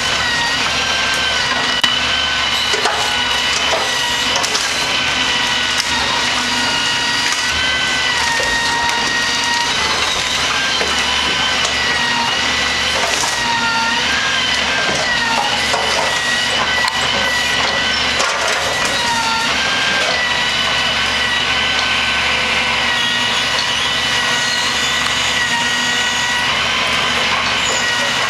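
Grapple truck's engine and hydraulics running steadily under load, a high whine that dips in pitch a few times as the boom and grapple work, with branches cracking and splintering as the grapple crushes and loads them.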